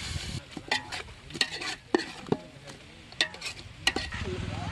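Steel ladle stirring mutton and masala in a metal pot, scraping and knocking against the pot's sides and bottom in about nine sharp strokes, over a light sizzle of the meat frying. A low steady hum comes in near the end.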